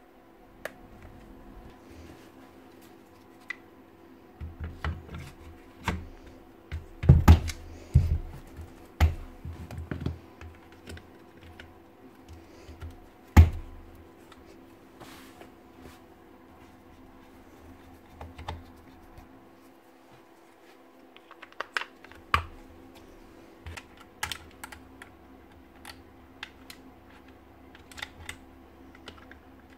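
Irregular clicks, taps and knocks of hard plastic parts and a screwdriver being handled while the motor end of a Hilti TE905 demolition hammer is put back together. The loudest knocks come about seven and thirteen seconds in, over a faint steady hum.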